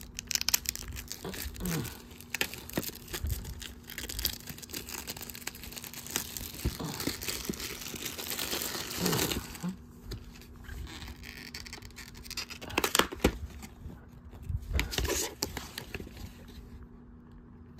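Plastic shrink wrap crinkling and tearing as it is stripped off a VHS tape case. It settles after about nine seconds into quieter handling of the case, with a few sharp knocks.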